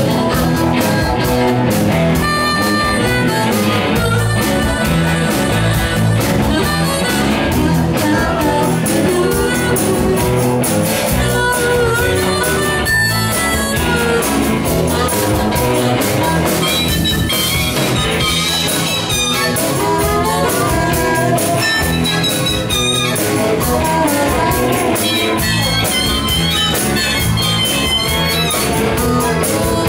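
Live rock-and-roll band playing an instrumental passage: electric guitar and drums under a harmonica lead that wails over the top.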